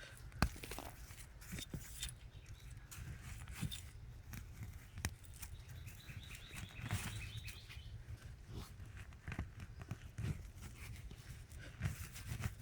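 Digging through garden soil by hand: scattered scrapes, crunches and small knocks of dirt being moved. A bird chirps briefly about halfway through.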